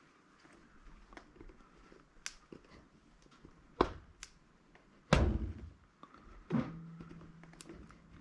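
Handling during a teardown of a scrap electronic device: a few light clicks, then three sharp knocks about a second and a half apart, the middle one loudest, followed by a faint low hum.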